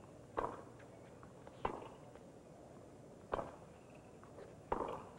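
A tennis ball being struck back and forth by racquets in a baseline rally: four sharp hits about a second and a half apart, with fainter ticks between them.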